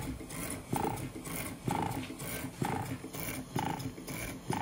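Scale model Galloway non-dead-center beam engine running slowly on about 10 psi of compressed air, puffing in a steady rhythm of about one beat a second, each beat a sharp puff followed by a short high note.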